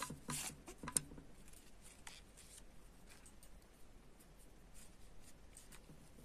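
Soft rustling and scraping of hands handling a crocheted yarn toy and drawing sewing yarn through it. The noises are loudest in the first second, with a sharp tick about a second in, then fade to faint rustles.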